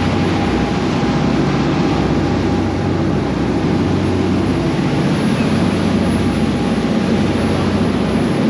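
Charter fishing boat's engine running steadily underway, a low continuous drone mixed with the rush of water and wind.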